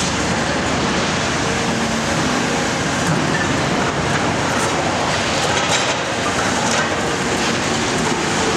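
Cat 340SB demolition excavator working: its engine and hydraulics run steadily while the multi-processor jaws crunch and scrape through concrete rubble.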